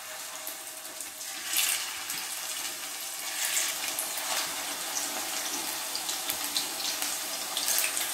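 Batter-coated bitter gourd slices sizzling as they deep-fry in hot oil, with the sizzle swelling briefly each time another slice is dropped in.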